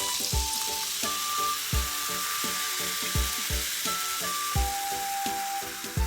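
Freshly opened Jack Daniel's and Coke fizzing, a steady hiss of carbonation that slowly fades, over background music with a steady beat.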